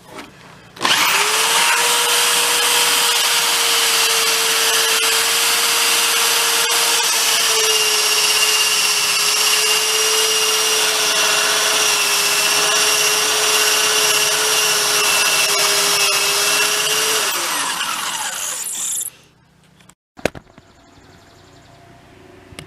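Electric drill running steadily under load, drilling into a rusted, stripped steel hinge bolt, for about sixteen seconds. Its whine then drops in pitch and dies away as the trigger is released.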